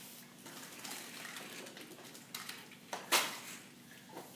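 Faint rustling, then a short cluster of clicks and knocks, the loudest a sharp knock about three seconds in.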